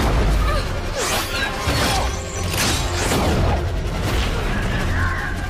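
Film action soundtrack: a deep rumble and dramatic score with several heavy booms and crashes in quick succession, roughly a second apart, about one to three and a half seconds in, like explosions and debris.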